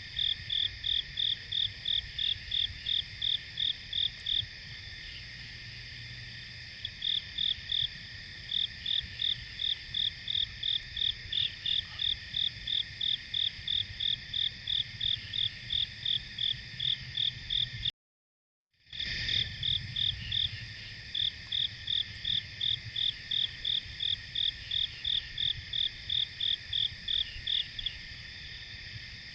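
Chorus of crickets and other insects: a steady high trill, with one insect chirping in an even series of about three chirps a second that pauses for a couple of seconds near the start. The sound cuts out for under a second partway through, then the same chorus resumes.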